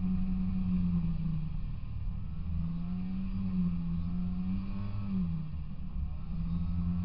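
Snowmobile engine running steadily while riding across snow, with a low rumble under its tone; the engine pitch drops briefly twice, about a second and a half in and again about five seconds in.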